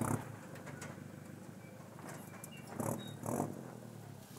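Toyota Hilux ute's engine running low and steady as the truck crawls slowly down a rocky track, with two brief rough noises from it about three seconds in. Birds chirp faintly.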